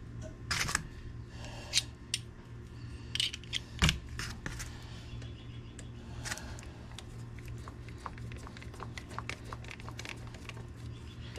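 Irregular small clicks and knocks of hand work at a Honda Helix scooter's front wheel hub as the speedometer cable is fitted and its retaining screw put in, the loudest knock about four seconds in.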